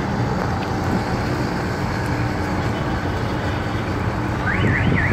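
Pakistan Railways passenger coaches rolling slowly past as the train pulls out, a steady rumble of wheels on the rails. A short high gliding sound comes near the end.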